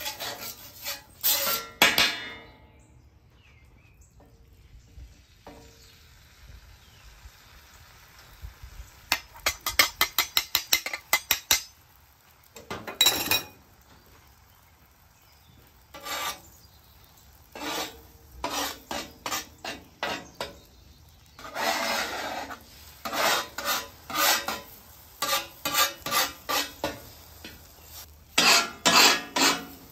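Metal spatula scraping and tapping on the steel of a flat-top griddle in short, repeated strokes, first spreading butter, then working eggs into a scramble; a quick run of strokes comes about ten seconds in, and from about sixteen seconds on the scraping goes on almost without a break.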